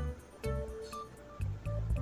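Background music with a steady beat: short plucked notes over a bass line.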